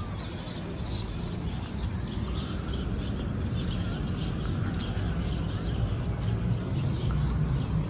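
Outdoor background ambience: a steady low rumble with faint bird chirps scattered through it.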